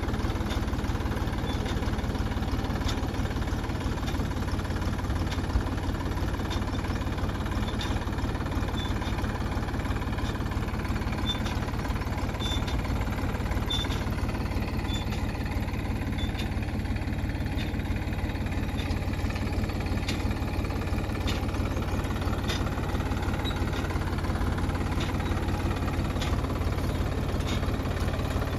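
Tractor engine running steadily while pulling a mulch-film laying machine through a field bed, with scattered light ticks over the engine sound.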